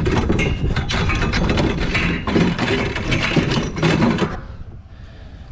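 Ratchet tie-down strap being cranked tight, its pawl clicking in a rapid run of rattling strokes that stops about four seconds in.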